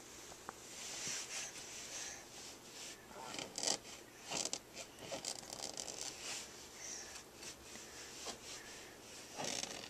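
A baby's fingernails scratching a surface in irregular, uneven strokes, a dry rasping scrape.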